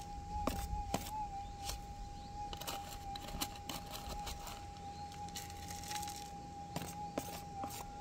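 Gold metal detector's steady threshold hum, one held tone with small wobbles. Over it come sharp knocks and scrapes of a pick and hand digging in gravelly ground.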